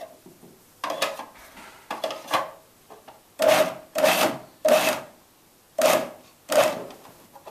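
Food processor pulsed in about seven short bursts, its motor whirring and blade chopping a coarse herb and egg sauce. The first two pulses are spaced out; the rest come closer together and louder.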